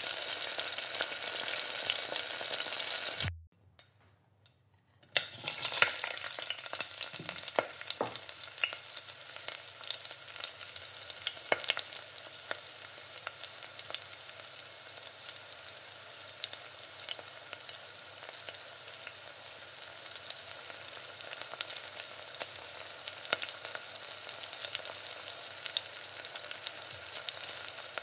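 Tomatoes and onions sizzling in a stainless steel pan, with a wooden spatula now and then knocking and scraping against the pan. The sound drops out briefly about three and a half seconds in, then the sizzling picks up again.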